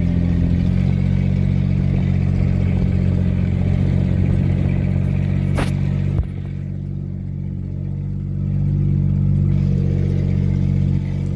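A vehicle engine running steadily, with a sharp click about six seconds in after which it gets somewhat quieter.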